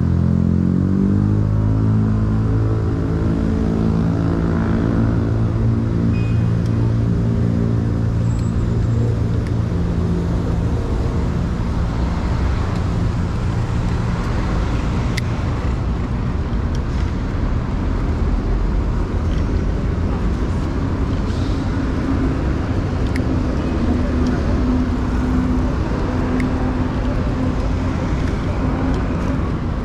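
Road traffic on a city street. A nearby vehicle's engine hums at a steady pitch for about the first ten seconds, then fades, and another engine hum comes in about two-thirds of the way through.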